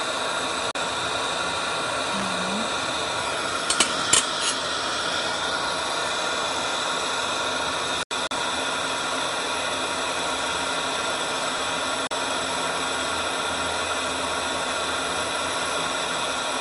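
Oxygen-and-gas glassworking torch burning with a steady hiss. There are a few light clicks about four seconds in.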